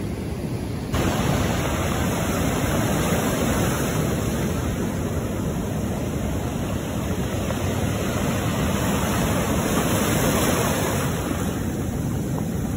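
Rough sea surf breaking and washing up over a pebble beach as a steady, dense rush of waves and foam, stepping up louder about a second in.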